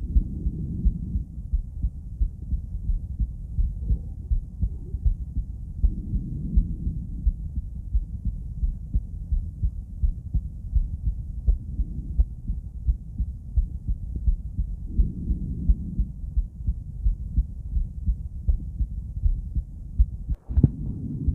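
A woman's heartbeat heard through a stethoscope chest piece: a steady run of low lub-dub beats. Near the end there is a brief scrape or knock, as of the chest piece shifting.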